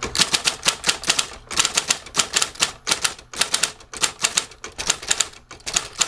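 Typing on a Royal Saturn (Silver Seiko-made) electric typewriter: a quick, uneven run of keystrokes and typebar strikes, about five or six a second. The machine has foam sound insulation fitted inside its body shell.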